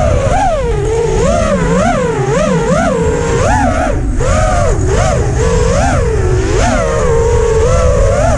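Brushless motors and propellers of an ImpulseRC Apex freestyle quadcopter whining, the pitch swooping up and down over and over as the throttle is punched and eased, over low wind rush on the onboard microphone.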